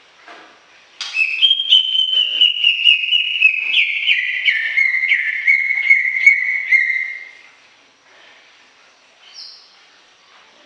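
Cucak ijo (greater green leafbird) singing a long, loud run of rapid whistled notes that steps gradually down in pitch, starting about a second in and stopping after about six seconds. A faint single high note follows near the end.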